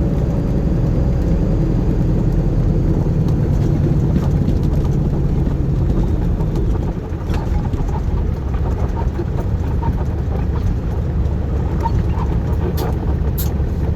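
Heavy truck's diesel engine running as it drives, heard from inside the cab as a steady low rumble, with a brief dip in level about seven seconds in.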